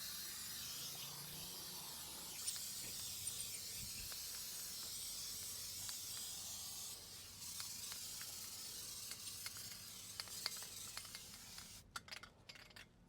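Aerosol can of spray-on sealant hissing steadily as it is sprayed, with a short break about seven seconds in and a few light ticks, stopping near the end.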